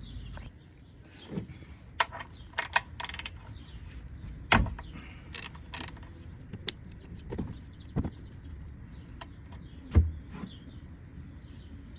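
Hand tools at work on a car's oil drain bolt: scattered clicks and knocks, with a quick run of clicks about three seconds in and two louder knocks about four and a half and ten seconds in.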